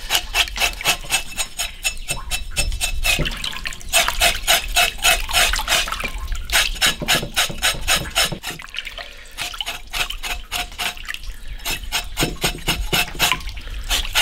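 Pork being scrubbed by hand in a basin of hot water: rhythmic rubbing and splashing strokes, several a second, pausing briefly now and then.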